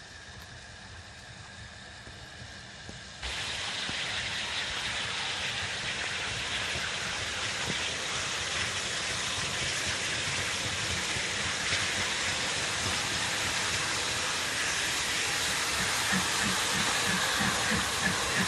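LMS 4F 0-6-0 steam locomotive No. 43924 approaching with a train: a loud, steady hiss of steam starts abruptly about three seconds in. Near the end, rhythmic beats come in at about three a second.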